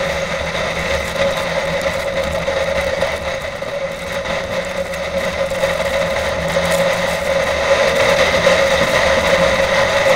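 Snowmobile engine running at speed under the rider, a steady high drone that gets a little louder over the last few seconds.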